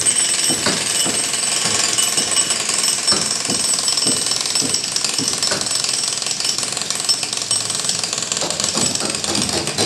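Power hammer of the jackhammer kind running continuously, with rapid repeated hammering strokes against a hard surface.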